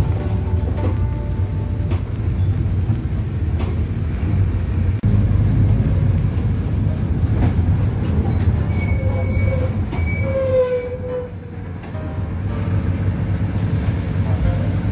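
Inside a moving city bus: steady low engine and road rumble as it drives. About nine to eleven seconds in there is a brief squeal, typical of the brakes as the bus slows.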